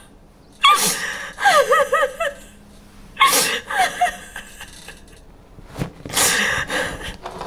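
Breathy human vocal sounds, gasps and short cries with wavering pitch, in three bursts of about a second each.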